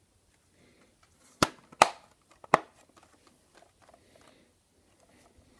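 Metal Blu-ray steelbook case being handled: three sharp clacks within about a second, then faint handling and rustling noise.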